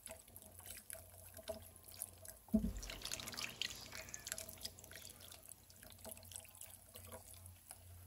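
Beef broth poured from a carton into a pot of beef cubes, splashing and dribbling into the liquid. A low thump about two and a half seconds in, then a heavier, louder gush of pouring for a second or so.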